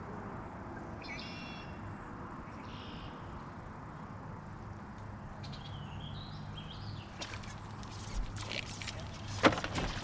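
Birds singing over a low steady hum on a bass boat, with short warbled calls twice in the first half. Near the end, scattered knocks grow into loud thumps on the boat deck as an angler sets the hook on a bass.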